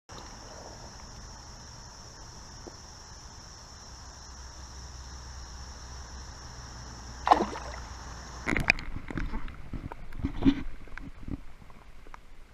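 Creek water running with a steady high hiss, then water splashing and sloshing close by: one sharp splash about seven seconds in and a run of irregular splashes a second later.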